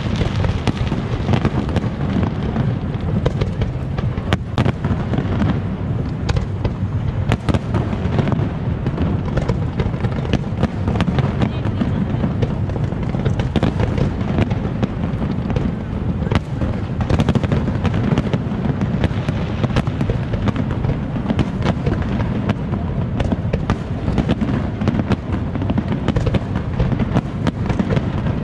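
Aerial fireworks display in a dense, continuous barrage: many sharp bangs and crackles over a constant low booming from shell bursts.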